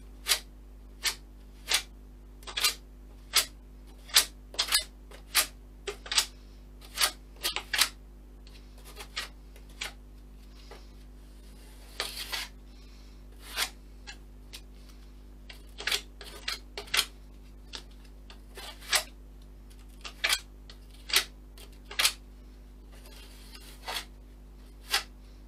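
A flexible plastic card scraping filler paste onto a model aircraft fuselage in short, quick strokes, about one a second, with a brief lull near the middle.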